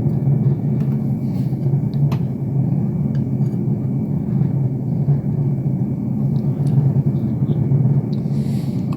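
Steady low rumble sound effect, like a spacecraft's engines, starting and stopping abruptly.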